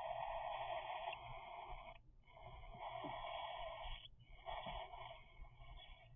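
Three-week-old cockatiel chicks giving their begging calls, in long runs of about two seconds each, three in a row with short breaks between.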